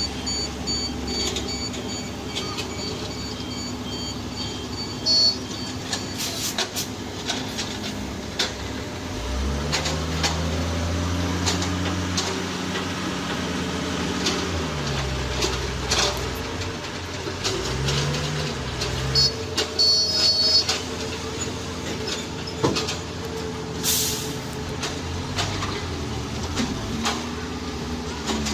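Heavy machine's diesel engine running, revving up about ten seconds in and dropping back a few seconds later, then rising briefly once more, with scattered clanks and short runs of high beeps.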